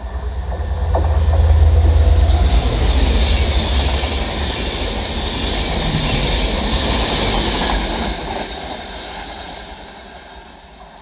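A Class 67 diesel locomotive and its train of Mk4 coaches with a Class 82 driving van trailer pass at speed. A heavy low engine rumble is loudest about two seconds in, then steady wheel-and-rail hiss runs as the coaches go by, and it all fades away in the last few seconds.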